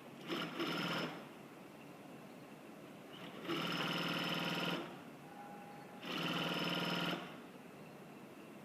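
Double-side cashmere sewing machine running in three short bursts at a steady speed, each about a second long, stopping in between.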